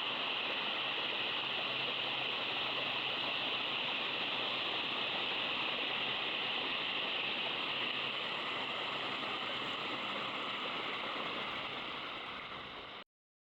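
Steady rush of flowing water. It fades over the last few seconds and is cut off abruptly near the end.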